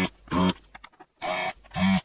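Background music: a run of short, evenly spaced notes, about two a second.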